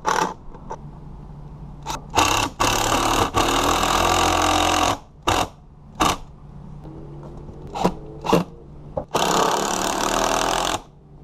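Cordless Makita 18V driver driving screws into a wooden fascia board. It runs in two long stretches of a few seconds each, one in the first half and one near the end, with short trigger blips between.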